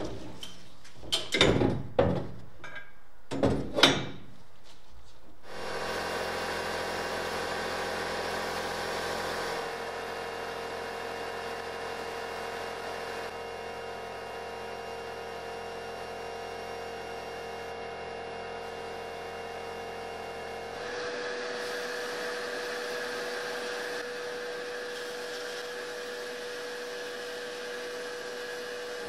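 A few metallic knocks and clanks as a rusty steel BMX handlebar is set into a Güde sandblasting cabinet. About five seconds in, the air-blast gun starts: a steady hiss of abrasive grit blasting rust off the steel tubes inside the cabinet, shifting in level a couple of times.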